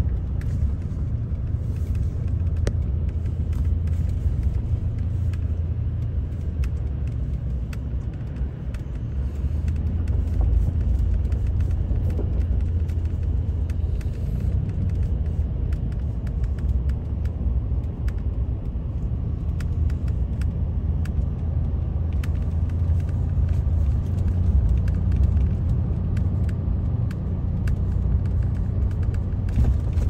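Steady low rumble of a car driving over a snow-packed road, engine and tyre noise heard from inside the cabin, with scattered faint clicks.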